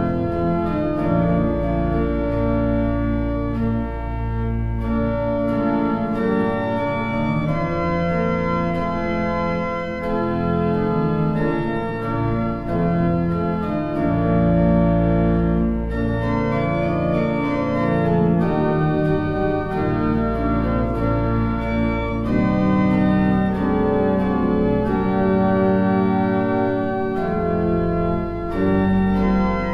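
Organ music: full held chords over deep sustained bass notes, with the harmony moving every second or two.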